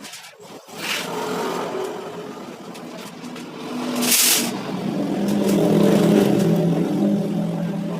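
A motor vehicle engine running and growing louder from about halfway through, with a short hiss about four seconds in.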